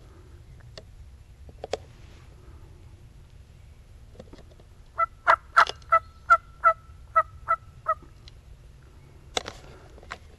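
Turkey yelping: a run of about nine evenly spaced yelps over some three seconds, loud and close. A short rustling knock follows near the end.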